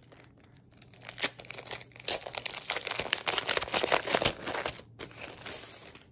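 Clear plastic sleeve crinkling and rustling as a stack of patterned scrapbook paper is slid out of it, starting about a second in and loudest in the middle.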